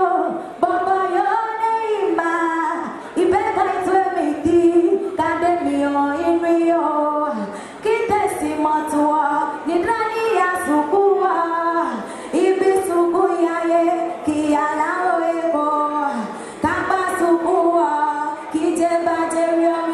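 A woman singing solo into a microphone without instrumental backing, in phrases with short breaks between them.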